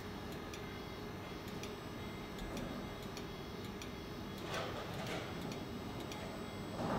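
Faint sharp ticks, about one or two a second, over the steady hum of a laser LCD repair machine, with a few louder soft knocks in the second half.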